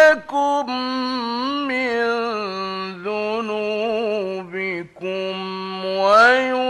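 A male Quran reciter's voice in melodic, drawn-out recitation, holding long ornamented notes that turn and glide in pitch, with a brief break for breath about five seconds in.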